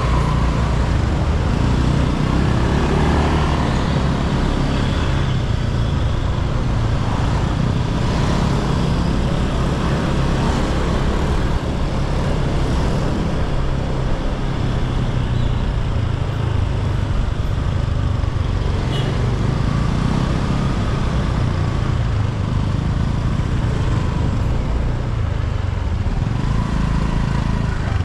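Motor scooter on the move along a road: steady engine and road noise.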